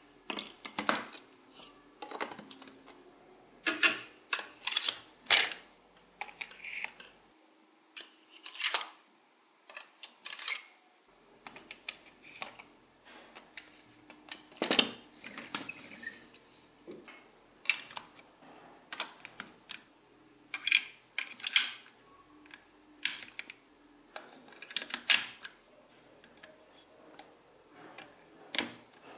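Large plastic toy building bricks and wheel parts being handled and pressed together: irregular sharp plastic clicks and snaps at uneven intervals, some in quick runs of two or three.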